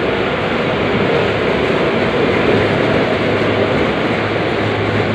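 Polyester popcorn production machinery running with a loud, steady rushing noise. A low hum joins about two and a half seconds in.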